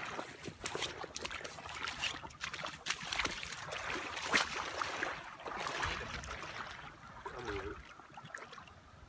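Water sloshing and splashing around legs in waders as people wade through a shallow river, a quick run of irregular splashes that eases off about seven seconds in.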